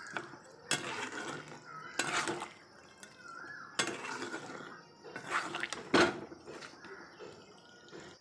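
Metal spatula knocking and scraping against a kadai while stirring a thick, wet curry: several separate clinks a second or so apart.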